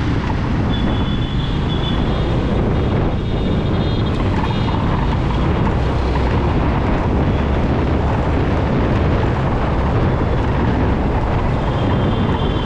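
Wind buffeting the microphone and a scooter's engine and road noise, steady and loud while riding.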